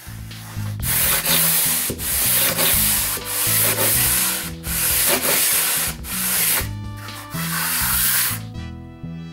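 Steel finishing trowel scraping across a dry-pack sand-and-Portland-cement mortar bed in a series of long strokes, each about a second, smoothing and tapering the shower floor's top coat toward the drain.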